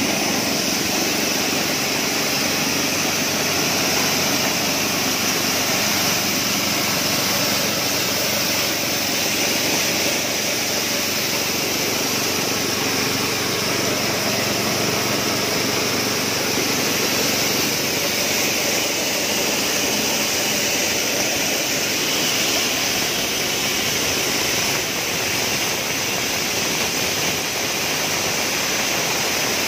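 Honda GX single-cylinder petrol engine running steadily under load, driving a portable dry-coffee huller that is stripping the dry skins off coffee beans, with the rushing noise of the hulling mill over the engine. It stays at an even, unbroken pitch and loudness.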